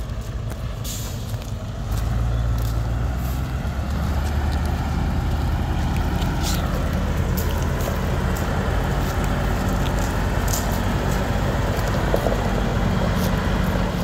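Scania 143M tractor unit's 14-litre V8 diesel engine running as the truck moves at low speed. It gets louder about two seconds in, with a few short hisses of air from the brakes.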